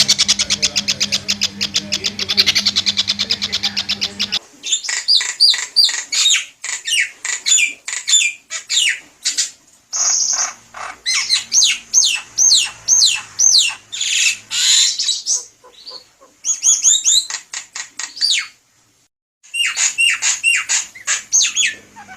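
Bird calls: quick runs of sharp, falling whistled notes in bursts with short breaks. Before that, the first four seconds hold a fast, evenly pulsed trill that cuts off abruptly.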